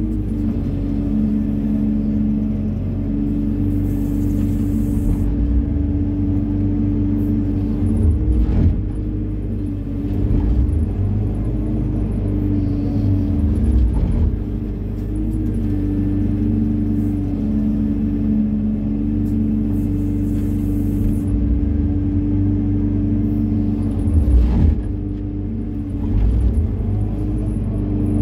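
Hyundai 140 wheeled excavator's diesel engine and hydraulics running under load as the bucket scrapes and gathers sand, heard from the operator's seat. The steady hum shifts pitch now and then as the boom and bucket work, with a couple of short knocks.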